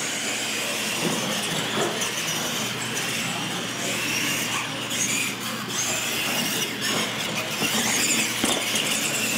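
Retro radio-controlled monster trucks racing across a smooth concrete floor: a steady high whine from their electric motors and gearboxes, with tyre noise on the concrete.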